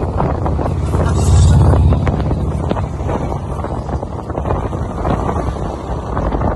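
Touring motorcycle engine running at road speed with heavy wind buffeting on the microphone, growing louder for a moment about a second in.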